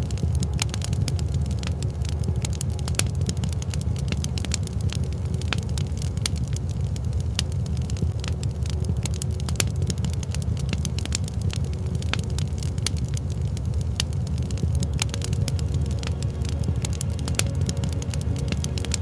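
Wood fire crackling, with many sharp irregular pops and snaps over a steady low rumble of burning.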